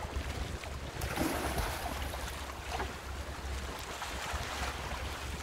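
Wind rumbling on the microphone over sea water washing against the hull of an anchored wooden longtail boat.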